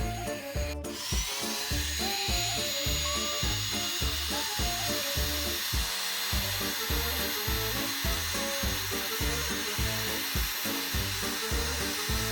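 Background music with a steady beat. From about a second in, a power drill runs steadily under it, a constant high whine and hiss.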